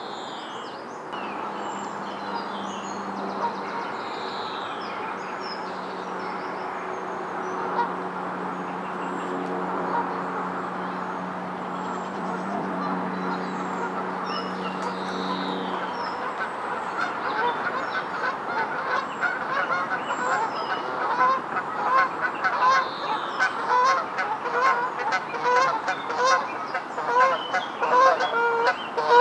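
Geese honking, short calls about once a second that start about halfway through and grow louder toward the end. A steady low hum runs through the first half, with a few small-bird chirps above it.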